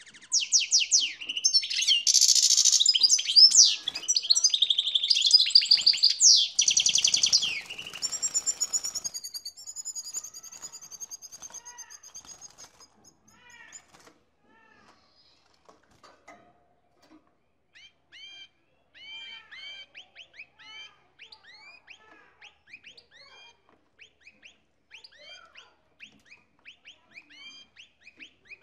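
Male European goldfinch in breeding condition singing its mating-season song: a loud, fast, twittering run for the first eight or nine seconds, fading out by about 13 s, then after a pause many faint, short, rising chirps repeated through the rest.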